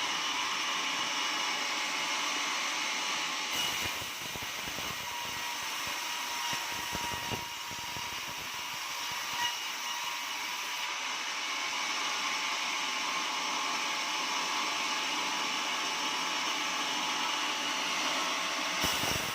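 Portable sawmill running steadily while sawing an oak log: a constant whine over a hiss.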